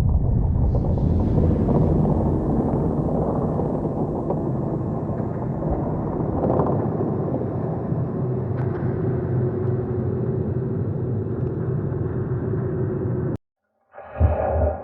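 Water sound effect: a steady, low rumbling rush of water that cuts off abruptly near the end, followed by the start of a different, shorter sound.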